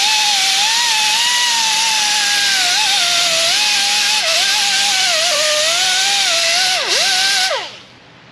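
Air die grinder spinning a small abrasive surface-conditioning disc against the steel wheel hub face to clean it. It gives a loud air hiss with a wavering whine, then winds down with a falling whine and stops near the end.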